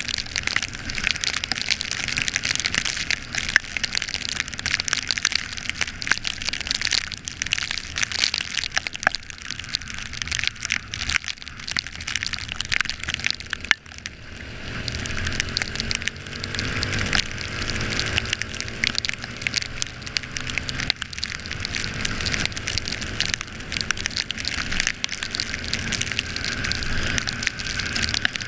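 Dense crackling of rain and wind hitting the microphone on a motorcycle ride in heavy rain, over the low run of the Yamaha Factor 125's single-cylinder engine. The engine's pitch shifts up and down through the second half.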